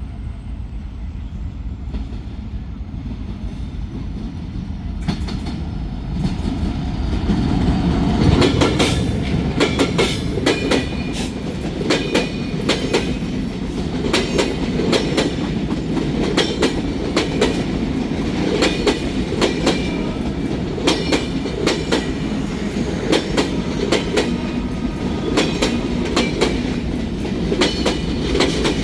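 A train running past close by, its wheels clattering over the rail joints: a low rumble swells about seven seconds in, then a steady run of sharp clicks and clacks continues.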